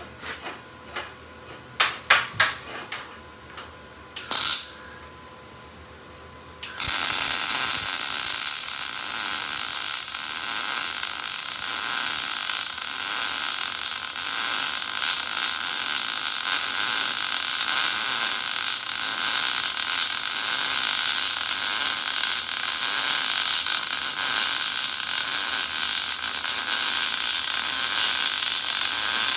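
Lincoln Electric Power MIG 211 gas-shielded MIG welder running a bead on 1/8-inch steel: the arc starts abruptly about seven seconds in and holds a steady, loud crackling hiss. Before it, a few clicks and knocks from setting the metal and welding gun in place.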